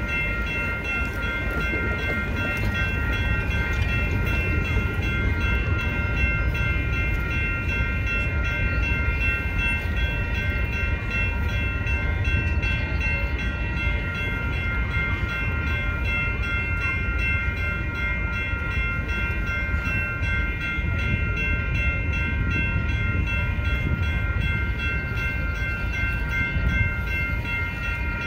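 Railroad crossing warning bell ringing over and over without a break, over the low rumble of a BNSF diesel locomotive idling.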